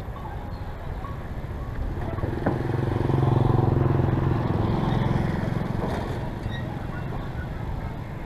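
A motor vehicle's engine passing close by: it grows louder about two seconds in, holds a steady pitch, and fades away over the next few seconds.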